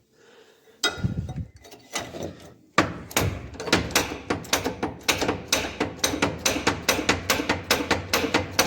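A power tool running, with rapid, evenly spaced metallic knocks about five a second over a steady low hum, starting about three seconds in after a few separate knocks. It is working to push a stuck part off a spreader's drawbar.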